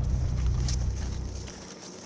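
Steady low rumble of a side-by-side utility vehicle driving, heard inside its enclosed cab. It cuts off suddenly about one and a half seconds in, leaving a much quieter outdoor background.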